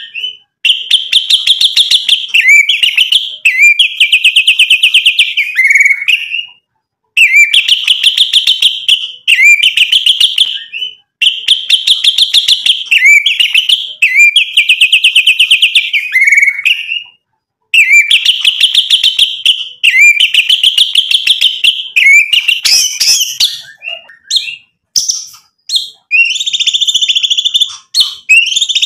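White-rumped shama (murai batu) singing: high-pitched phrases of rapid rattling notes, each two to three seconds long, repeated with short breaks. Near the end the song changes to a mix of varied short notes and whistles.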